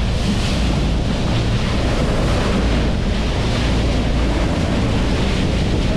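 Steady wind buffeting the microphone, over water washing against the bow of a fishing boat at sea.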